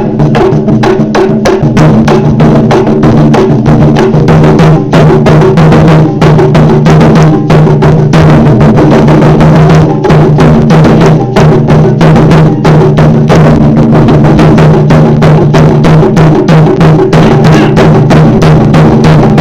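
Taiko drums played loudly in a fast, driving rhythm of rapid strikes, with the drums' deep ringing tone sustained underneath.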